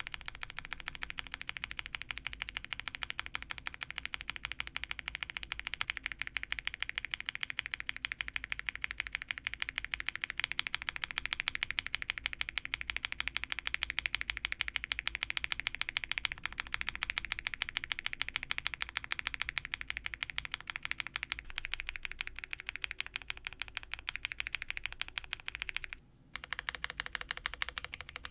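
Mechanical keyboard keys clacking in rapid repeated presses: the Enter key, tested with Cherry-profile keycap sets in turn (ABS doubleshot, GMK ABS and PBT), the tone shifting as the sets change. A brief break about 26 seconds in, then the Shift key clacking.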